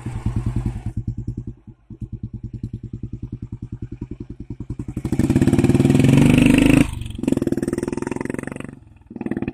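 Royal Enfield Standard's single-cylinder engine thumping with an even, steady beat as the motorcycle rides away, growing louder as it is opened up about five seconds in. The sound breaks off sharply near seven seconds and dips again near nine, as at gear changes.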